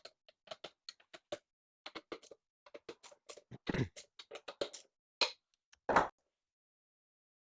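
Irregular clicks and taps of hand tools and small metal hardware as screws on an e-bike are snugged up, with two louder knocks. The sounds stop about six seconds in.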